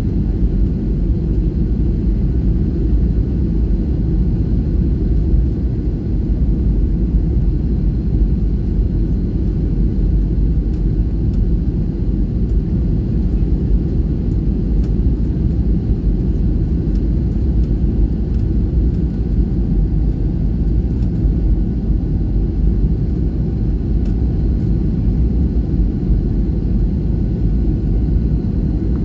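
Steady cabin noise inside a jet airliner in flight: an even, low rumble of engines and rushing air.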